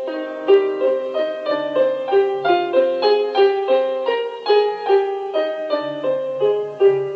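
Solo piano music: a flowing run of notes, about three a second, over a low bass line.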